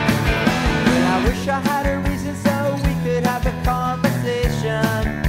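Rock music: a band with a steady drum beat, bass and guitar.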